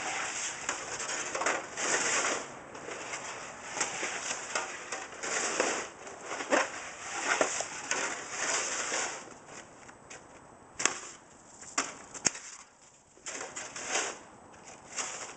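Two spring-loaded snow shovels scraping and crunching through packed snow and ice chunks in repeated pushes. It thins out after about nine seconds, with three sharp knocks around eleven to twelve seconds in.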